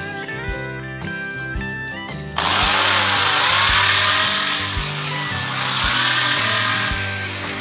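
A handheld power tool starts about two seconds in and runs, its pitch dipping and rising as it takes load, over background music with a steady beat.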